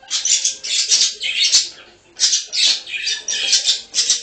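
A small yellow parakeet bathing in a shallow dish of water, splashing with quick flutters of its wings in a run of loud bursts, with a short pause about two seconds in.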